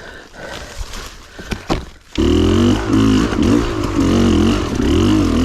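A few light knocks and scuffs. Then, about two seconds in, a Beta Xtrainer 300's two-stroke dirt bike engine comes in loudly and abruptly and is revved up and down repeatedly.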